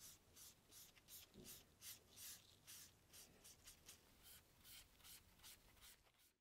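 Cloth rubbing quickly back and forth along a baseball bat's handle, working in an oil finish: faint, short swishes, about three or four a second.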